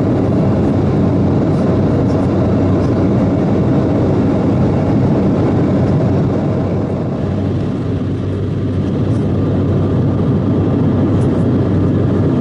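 Steady in-flight cabin noise of an Embraer 190 airliner, heard from inside the cabin: a continuous drone of its turbofan engines and airflow with a low hum. It eases slightly about two-thirds of the way through.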